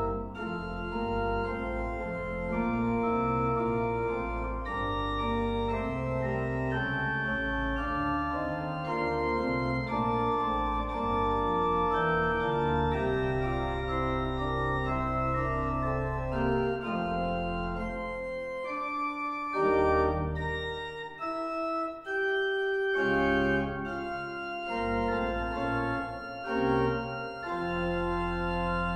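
Church organ playing slow, sustained chords over deep pedal bass notes, in phrases with brief breaks.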